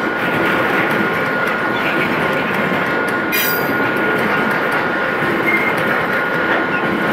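Loaded coal train's freight wagons rolling past: a steady rumble of steel wheels on rail over a thin steady high tone, with a brief sharp screech about three seconds in.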